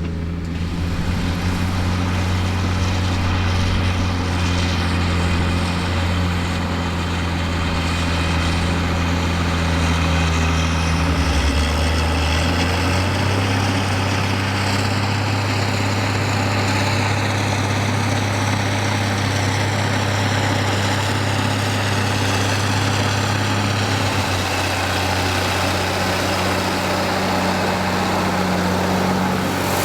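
1989 Ford TW-25 Force II's six-cylinder turbo diesel running steadily under load, pulling a seven-furrow reversible plough at about 2,000 rpm. The engine note changes about twelve seconds in.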